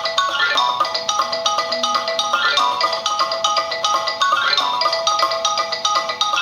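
Samsung Galaxy Young 2 ringtone playing: a marimba-like mallet melody of quick notes, its short phrase repeating about every two seconds.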